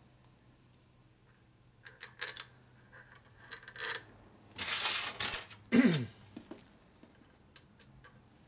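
Small metal bolts and studs clicking and clinking as they are handled and fitted to a metal engine cover by hand, with louder scraping and rustling handling noise about five seconds in, over a steady low hum.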